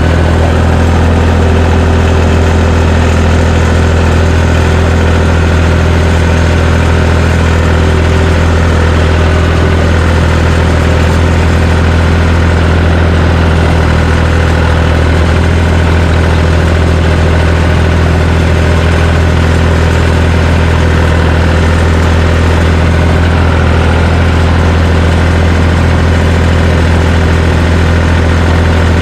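John Deere 350 crawler dozer's engine running steadily at an unchanging speed, a deep constant hum.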